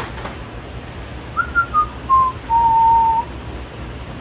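A person whistling a short falling phrase: a few quick notes stepping down to one longer held note.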